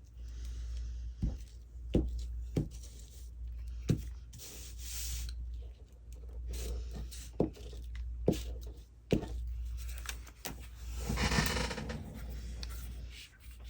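Paper and cardstock being handled, scraped and pressed on a craft table: scattered sharp taps and clicks, a scraping rub, and a longer rustle about eleven seconds in, over a steady low hum.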